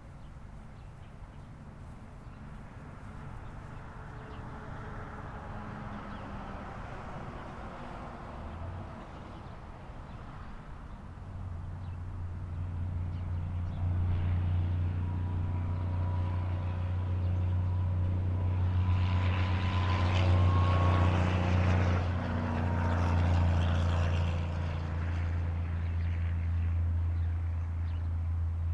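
A passing engine: a low steady drone that builds up about a third of the way in and stays loud, with a rush of noise swelling near the middle.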